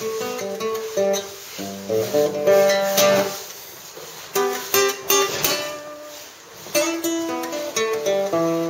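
Acoustic guitar played by hand, plucked notes and strummed chords ringing out one after another, quieter for a few seconds in the middle.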